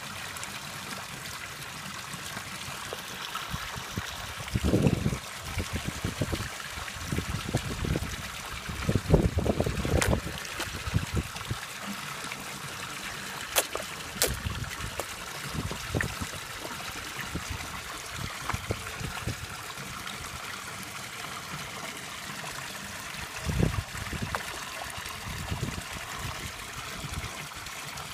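Steady trickling of pond water, with koi slurping and splashing at the surface as they take food from a hand; the splashing comes in irregular bursts, loudest about five seconds in, around ten seconds, and again near the end.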